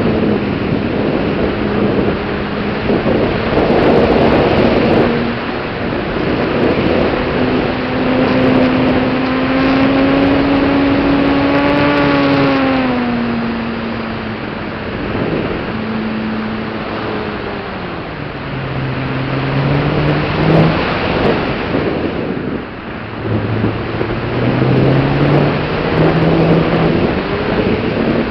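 Propeller and motor of a radio-controlled model Yak aerobatic plane in flight, its pitch changing with the throttle: holding steady, rising a little, then dropping sharply about halfway and again later before climbing back near the end. Heavy wind rush on the onboard microphone runs under it.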